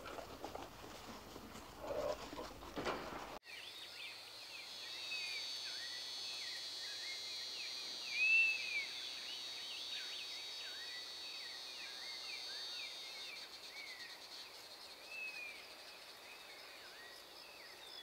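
Outdoor nature ambience: many short, quick bird chirps over a steady high insect drone, coming in at an abrupt cut about three seconds in. Before the cut, a few seconds of rustling, noisy ground sound.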